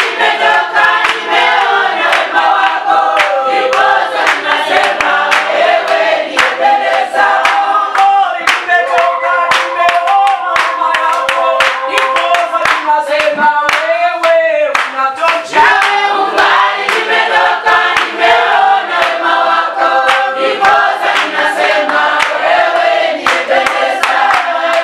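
A congregation singing a praise-and-worship song together, with rhythmic hand clapping throughout. About halfway through, a single voice swoops up and down above the group.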